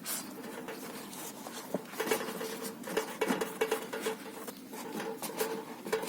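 Camp cookware and utensils clinking and knocking: a run of short, light knocks and clicks that grows busier from about two seconds in.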